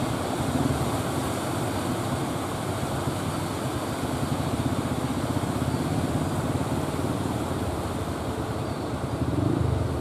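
Surf breaking and washing in the shallows, a steady low rush of water that swells near the end as another wave breaks.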